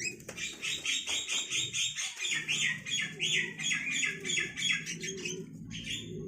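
Javan myna giving a rapid run of harsh squawking notes, about four or five a second, that stops about a second before the end. Domestic pigeons coo faintly underneath from about halfway through.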